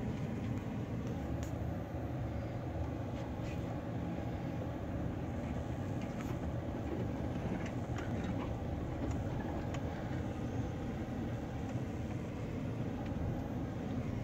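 Pickup truck driving off-road, heard from inside the cab: a steady low engine and tyre rumble, with a few light knocks and rattles here and there.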